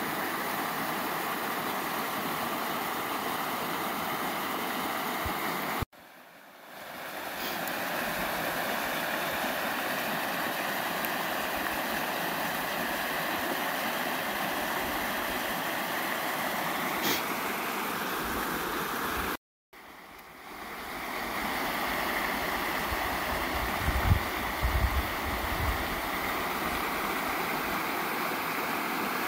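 Small mountain creek flowing steadily over rocks, a constant rushing of water. The sound cuts out suddenly twice and fades back in, and there are a few low thumps near the end.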